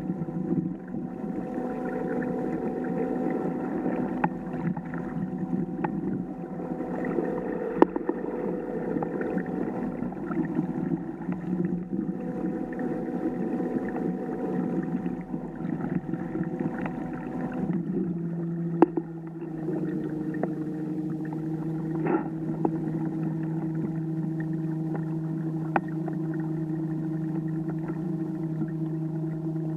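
Electric kayak motor running with a steady whining hum, its pitch dropping a little and settling about eighteen seconds in. A few sharp clicks or knocks sound over it.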